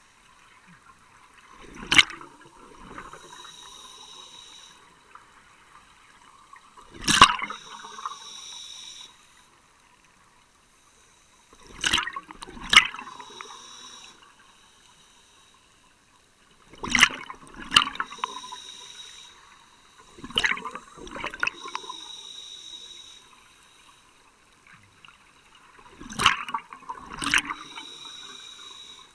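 Scuba regulator breathing underwater: about every five seconds a loud rush of exhaled bubbles that trails off over a second or two, with a quieter hiss between breaths.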